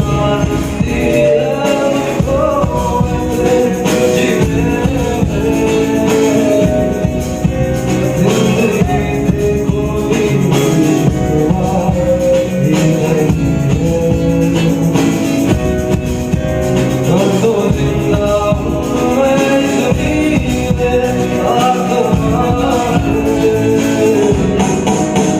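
Live band music with a singer: a melodic vocal line over instrumental backing, playing continuously.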